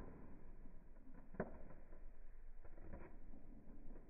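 Sheet of paper being folded and creased by hand on a hard floor: faint, scattered rustles and scrapes, the sharpest about a second and a half in.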